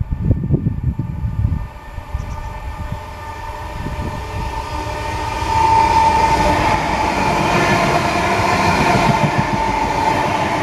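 London Midland Class 323 electric multiple unit passing, its rumble on the rails growing, with a steady whine from its traction equipment that is loudest from about halfway in. Low buffeting is heard in the first two seconds.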